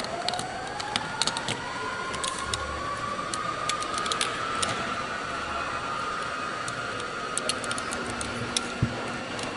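Small metal parts of a cordless framing nailer's driver and cylinder assembly clicking and clinking lightly as they are handled and fitted, over a background whine that rises in pitch for the first few seconds and then holds steady.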